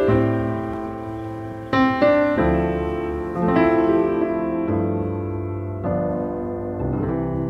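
Slow piano music: sustained chords struck every second or two, each fading away before the next.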